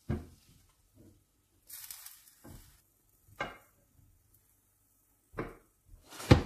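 A spatula scraping and knocking in a frying pan while stir-fried vegetables are lifted out and served onto a plate. It comes as a series of separate short scrapes and taps, with the loudest knock near the end.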